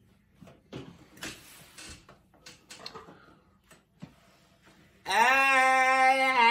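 A man's long, flat-pitched disgusted 'ehhh', held for about a second and a half near the end, as he tastes canned dog food. Before it come scattered soft clicks and scrapes of a fork on a paper plate.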